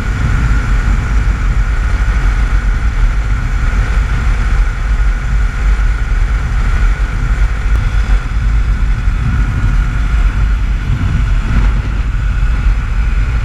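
Honda XR250 Tornado single-cylinder motorcycle cruising at highway speed, its engine running steadily under a heavy rush of wind on the microphone.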